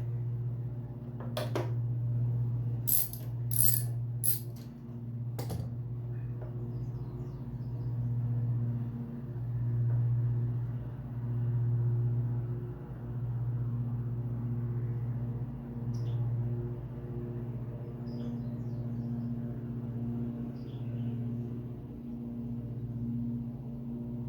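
A few sharp metal clinks of hand tools in the first several seconds, as a spark plug is worked loose with a socket wrench. Under them and on to the end runs a steady low hum that swells and fades.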